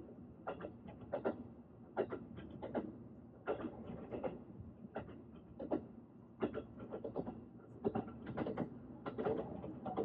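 Train running on rails: wheels clacking over the rail joints in repeated short groups over a steady low rumble.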